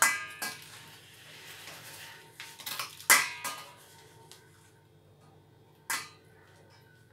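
Dishes clinking and knocking during salad preparation. One ringing clink comes at the start, a cluster of knocks follows about two and a half to three and a half seconds in (the loudest near three seconds), and one more knock comes about six seconds in.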